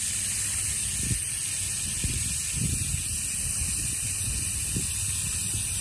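Garden hose spray nozzle on its shower setting, spraying water steadily onto the roots of a clump of lettuce seedlings to wash the soil off, with the water splashing into a shallow saucer of water below.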